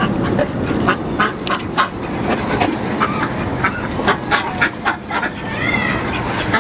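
Ducks quacking, many short calls in quick succession over a steady background din.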